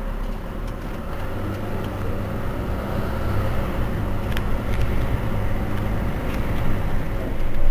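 Mercedes-Benz Citaro C2 city bus idling at a stop: a steady low diesel engine hum that grows gradually louder.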